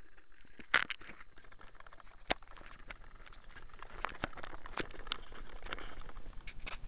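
Handling noise on an 808 key fob camera's built-in microphone: fingers rubbing and tapping on the small plastic camera body give a soft scraping and irregular clicks. The sharpest click comes about three-quarters of a second in, and the clicks come thicker from about four seconds on.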